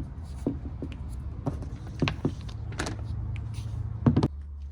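Hands working a lawn mower's pull cord rope and starter handle: scattered light clicks and knocks, with a louder cluster about four seconds in, over a steady low hum.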